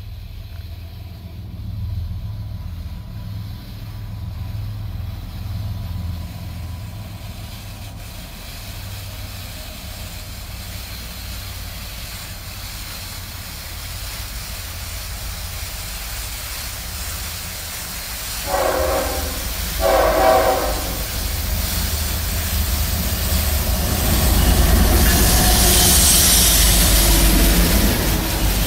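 Diesel freight train led by two CN locomotives approaching out of a tunnel, its engine rumble building, with two short horn blasts about two-thirds of the way through. Near the end the locomotives pass close with a loud rush, and the double-stacked container cars follow with wheel clatter on the rails.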